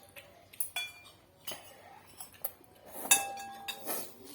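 Eating utensils clinking against dishes: a string of light clinks, several ringing briefly, with the loudest strike about three seconds in.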